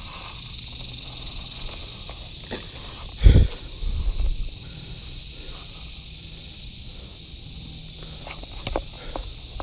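Steady high buzzing of insects in the surrounding brush. A heavy thump about three seconds in, followed by a few softer knocks.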